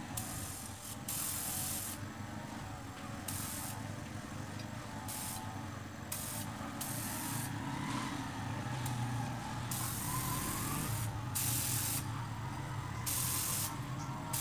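Compressed-air paint spray gun hissing in repeated on-off bursts, some brief and some lasting a second or two, as the trigger is pulled and released to test-spray thinned white paint. A steady low hum runs underneath.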